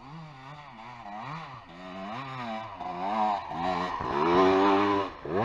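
Dirt bike engine revving up and down over and over as it climbs a steep dirt slope, getting louder as it comes closer, with a sharp rev near the end.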